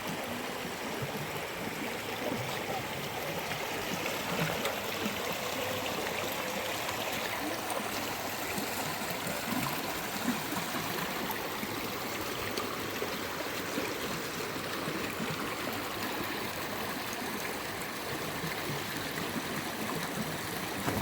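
A steady rush of water, an even hiss with faint scattered patters and drips.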